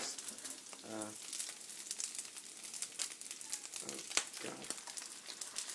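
Food frying in a pan on the stove, a steady sizzle full of small crackles, with a few louder pops.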